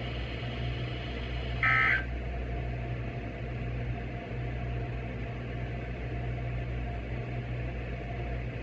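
Emergency Alert System end-of-message data burst: a short, harsh two-tone warble near 2 kHz about one and a half seconds in. Afterwards only a steady low hum remains.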